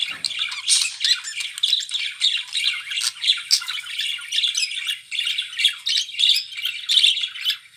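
Several budgerigars chattering and squawking together, a dense stream of short, overlapping scratchy calls and warbles.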